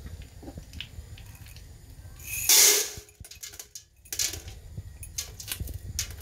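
Popcorn kernels poured from a mug into a stainless steel pot with oil in it, a loud half-second rush about two and a half seconds in, followed by scattered clicks and knocks of kernels and the mug against the pot.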